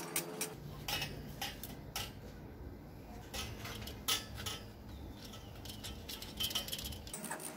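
Stainless-steel retractable clothes hanger being handled: its rods and scissor arms clink and click as they are moved, making a scattered string of light metal knocks over a low background rumble.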